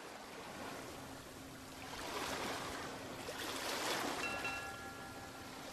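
Ocean surf washing on a shore, a steady hiss of breaking waves that swells and eases. A few faint thin tones come a little past four seconds in.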